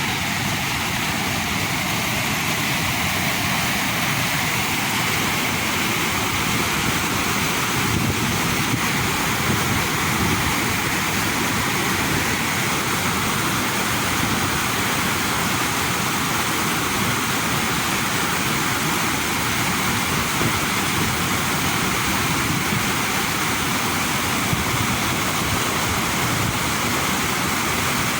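Steady, unbroken rush of running water, even and loud with no change.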